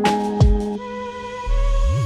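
Background music: sustained instrumental tones over a low beat, with a deep bass note coming in near the end.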